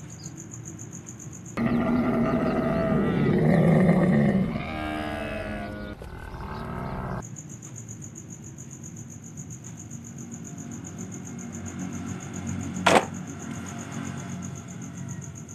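A camel calling: a grunting bellow with a wavering pitch, starting about a second and a half in and lasting about five and a half seconds. Crickets chirp steadily before and after it, and a single sharp click sounds near the end.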